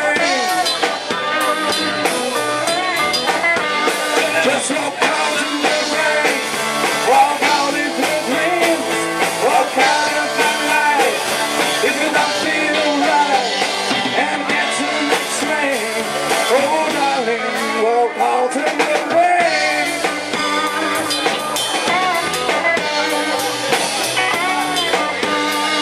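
Blues-rock band playing the instrumental close of the song: drum kit and guitars under a melodic lead line that bends up and down in pitch.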